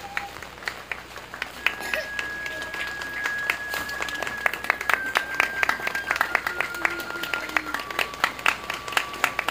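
Audience applause: scattered hand claps that thicken into steady clapping after about a second and a half. Under it a thin, steady high tone is held and steps down in pitch a few times.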